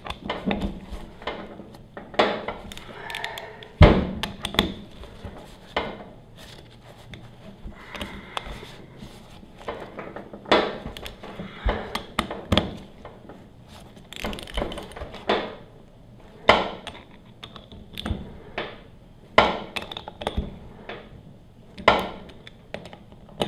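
Socket ratchet clicking in short runs as the bolts of a pressure washer pump's aluminium housing are snugged down, among irregular sharp metal knocks of the pump and tools being handled.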